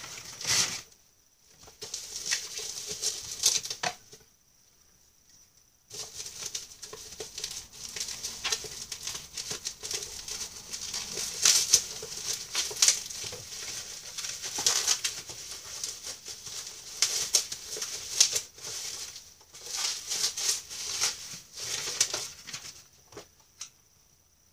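Plastic wrapping and cardboard packaging crinkling, rustling and tearing as a package is cut open with scissors and the item unwrapped by hand, in irregular bursts with a short lull about four seconds in.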